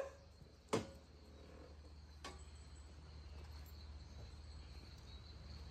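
Quiet outdoor ambience with a faint, steady, high-pitched insect drone. A short click comes about three-quarters of a second in, and a fainter one about two seconds in.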